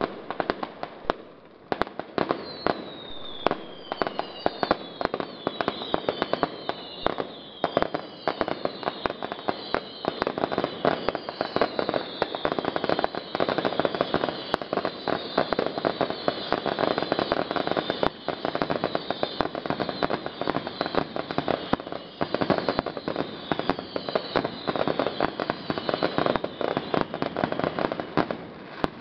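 Fireworks display: dense, rapid crackling and popping throughout, with many overlapping falling whistles from about two seconds in until near the end.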